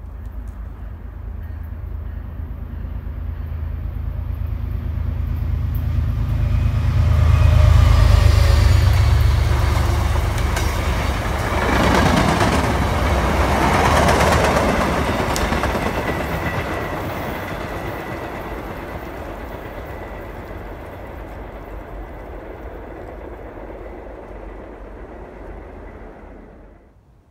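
MBTA commuter rail train passing close by, a diesel locomotive with bilevel coaches. A deep engine rumble builds and peaks about eight seconds in, then the coaches' wheel and rail noise takes over. The sound slowly fades as the train pulls away, leaving a thin high ringing tone from the rails.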